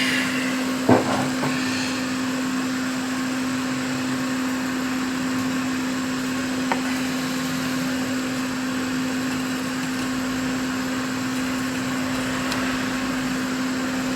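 A small electric fan or blower runs steadily with a constant low hum. There is one sharp knock about a second in and a faint tick near the middle.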